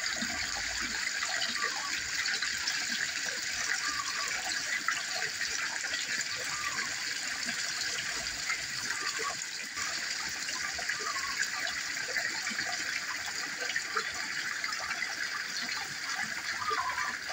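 Small garden-pond waterfall: water spilling steadily over rocks and splashing into the pool.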